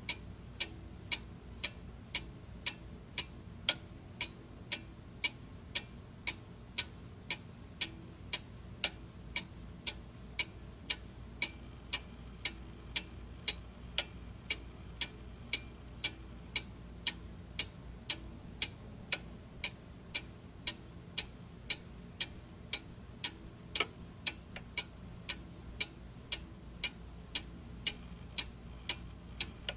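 Clock ticking steadily, about two even ticks a second.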